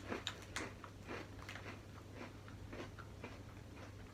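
Chewing small chocolate crackers: faint, irregular crunches, quicker in the first second and then spaced out.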